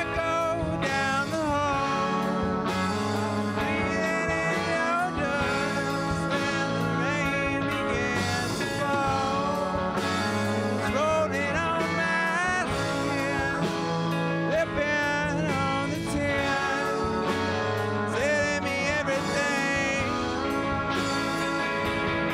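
A live rock band playing an instrumental passage on electric guitars, bass guitar and drums over a steady beat. A lead melody line bends and wavers in pitch above it.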